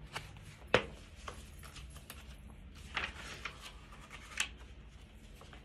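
Pages of a picture book being turned and handled: several short paper rustles and taps, the sharpest under a second in.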